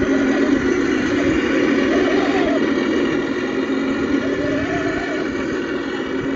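Beier USM-RC-2 sound module in an RC scale MAN KAT1 truck playing a simulated diesel engine through its small speaker. It runs steadily, with slight rises in revs about two seconds in and again about five seconds in as the truck is driven.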